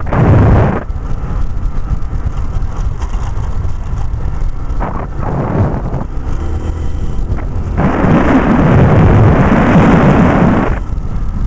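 Wind buffeting the microphone of a camera on a moving motorcycle, over a steady low rumble of the ride. There is a short gust at the start and another about five seconds in, then a longer, louder one near the end.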